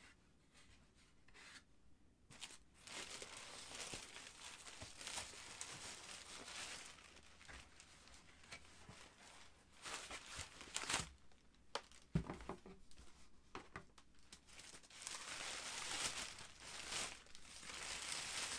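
Tissue paper rustling and crinkling as a boot is unwrapped from its cardboard shoebox, growing louder near the end, with a few knocks and a dull thump from the box being handled about two-thirds of the way in.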